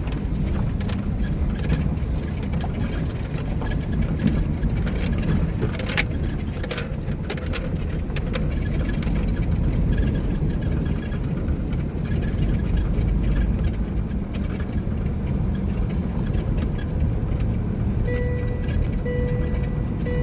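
Steady low rumble of a heavy truck running, engine and road noise, with a few faint clicks. Near the end a repeating beep-like tone starts up.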